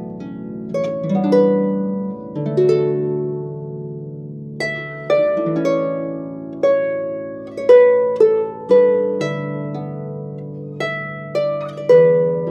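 Starfish Mamore Celtic harp (clarsach) playing a slow lullaby melody: single plucked notes ringing and decaying over held bass notes, with no other instruments.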